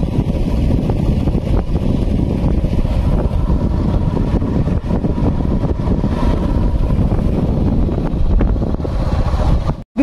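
Wind buffeting the microphone over the steady noise of a moving vehicle, a dense low rumble. The sound cuts out for an instant just before the end.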